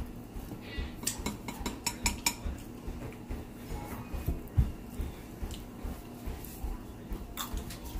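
A metal fork clinking and scraping against king crab legs and a metal serving tray as the crab meat is picked out: scattered light taps and clicks, thickest in the first couple of seconds.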